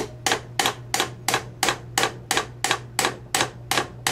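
A hammer drives a steel roll pin into a shift fork on its shift rail in a Borg-Warner T90 three-speed transmission top cover. It strikes steadily, about three metal-on-metal blows a second, each with a short ring.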